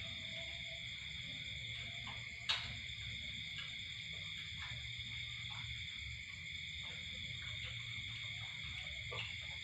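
Steady night chorus of frogs and insects calling continuously. One sharp click stands out about two and a half seconds in, with a few faint clicks of chopsticks and dishes around it.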